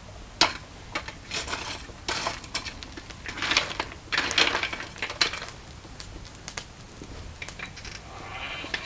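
Metal clinking and scraping: tongs and steel knocking about in a coal forge, in sharp clinks and short scraping rasps. A whirring begins to build near the end.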